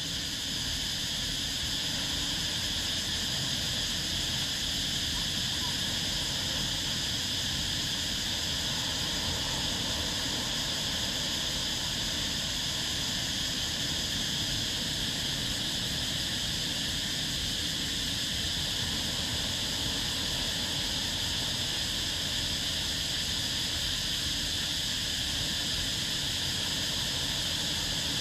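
Steady, even high-pitched insect chorus over a low, constant rumble of small waves on the beach.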